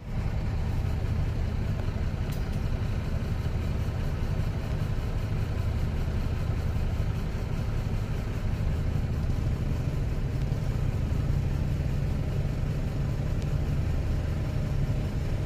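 Steady low engine and road rumble of a car, heard from inside the cabin while it is under way.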